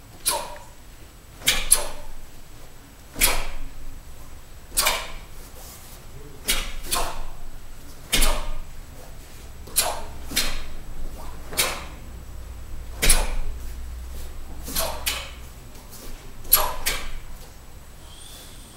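Two TaeKwon-Do practitioners' uniforms snapping sharply as they strike and block through a pattern together, about one crack every second and a half. Many cracks come doubled, where the two are slightly out of step.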